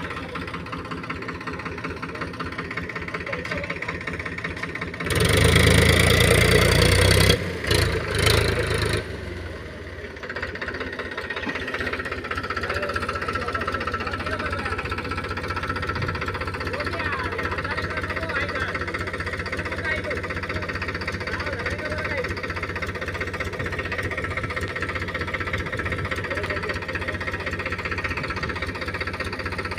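Powertrac 439 Plus tractor's diesel engine running steadily, with a much louder burst of noise about five seconds in that lasts about four seconds. The engine runs on with the tipping trailer raised by the end.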